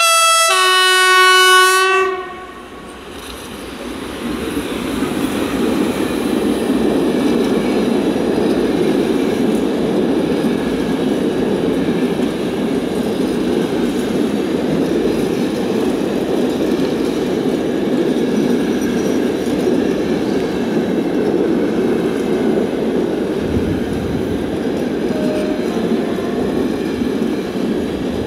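Train horn blown as two notes, a brief high one then a longer low one, about two seconds in all and the loudest sound here. A freight train then rolls past, a steady rumble of wheels on rail that builds over a few seconds and carries on.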